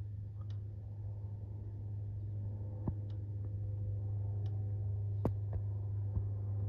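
Cessna 172 Skyhawk SP's four-cylinder engine and two-blade propeller droning overhead, a low steady hum heard through window glass that grows slowly louder as the plane approaches. A few sharp clicks are heard along the way.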